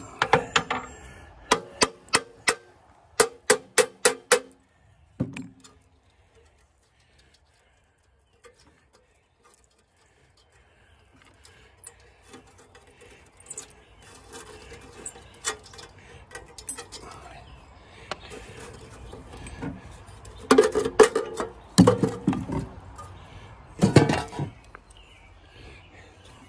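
Sharp metal clinks and taps, each with a brief ringing tone, in quick runs of about three a second near the start and again a few seconds before the end, with quieter rattling of loose metal in between: tools and parts knocking against the sheet-metal cooling shroud of a Wisconsin air-cooled engine as it is unbolted and lifted off.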